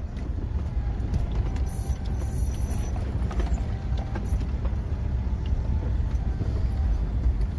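Inside the cabin of a Land Rover Discovery crawling along a rough dirt track: a steady low rumble of engine and tyres, with irregular knocks and rattles as it bounces over the uneven ground.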